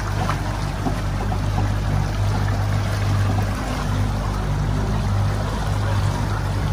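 Boat engine running steadily as a low hum, under the rush and splash of water along the hull and wake.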